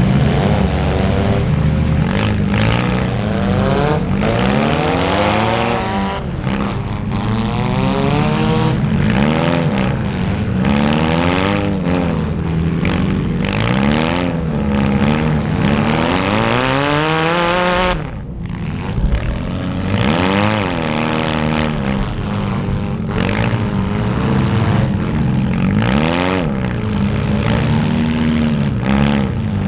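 Demolition derby small cars' engines revving up and down over one another, with several engines rising and falling in pitch at once over a low drone, and a few sharp knocks of impacts.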